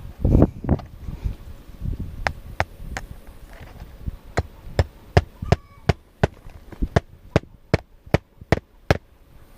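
Hammer driving a roofing nail into an asphalt shingle: a run of sharp taps, about three a second, from about two seconds in until near the end, after a few duller knocks at the start.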